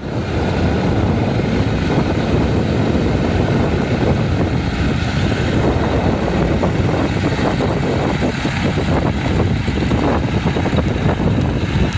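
Vintage piston-engined propeller aircraft running loudly and steadily, with the sound starting suddenly.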